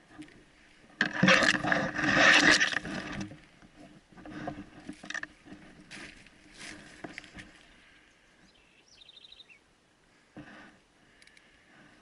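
Irregular rustling and crunching, loudest for about two seconds starting a second in, then in smaller scattered bursts. A brief rapid chirping comes about three quarters of the way through.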